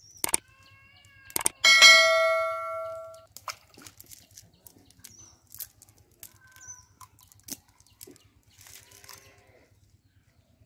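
A metal object struck once, giving a loud clang that rings on for about a second and a half before fading. A few sharp clicks come just before it.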